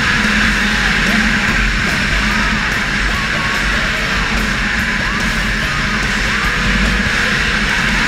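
Hard rock music with electric guitar, laid over the footage as a soundtrack.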